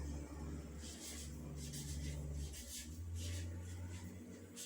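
Someone writing or drawing by hand: a run of short, soft scratching strokes, over a low steady hum.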